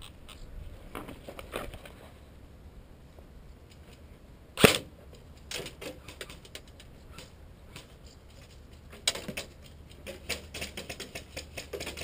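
Airsoft gun fired single shots: one loud sharp crack about four and a half seconds in and a weaker one near nine seconds, amid scattered small clicks and rustles.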